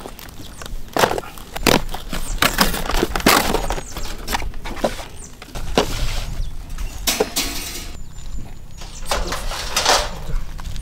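Camp gear being handled: irregular knocks, clinks and clatters with rustling between them, including a folding metal fire grate being set up.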